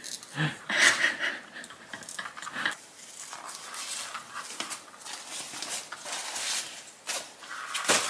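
Mixed-breed puppies sniffing and panting close by in short, noisy breaths, louder about a second in and again near the end.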